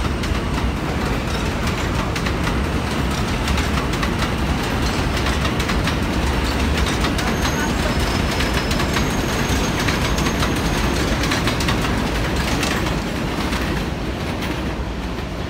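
Modern stainless-steel subway train rolling along elevated steel track, its wheels clicking steadily over rail joints, with faint wheel squeal in the middle; the sound eases off near the end.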